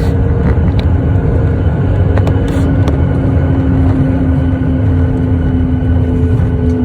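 Cabin noise aboard a Boeing 737-8 on the ground after landing: a steady, loud low rumble with a humming tone from the CFM LEAP-1B engines. The engine tone edges slightly up in pitch about halfway through.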